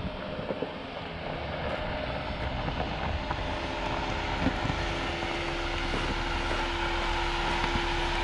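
Motor vehicle running, a steady engine drone over low rumble and road noise, slowly growing louder.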